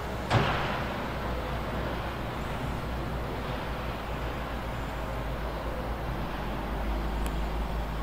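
A heavy snow-clearing machine's diesel engine running steadily, with one sharp metallic bang about a third of a second in that dies away over half a second.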